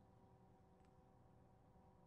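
Near silence: room tone with a steady faint hum and one faint tick a little under a second in.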